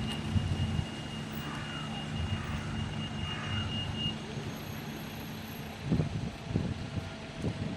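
Steady low engine rumble from the working site, with a thin high whine held for about four seconds, then a few dull low bumps near the end.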